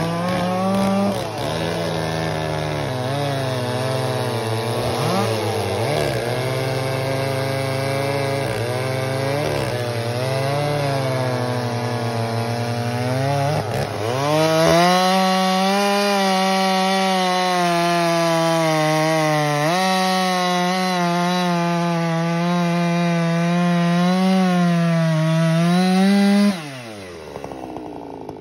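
Gas chainsaws running at full throttle while cutting through a large log, the engine note sagging and picking back up as the chain bites into the wood. About halfway through, a different saw takes over with a higher, steadier note. Near the end the throttle is let off and the engine winds down.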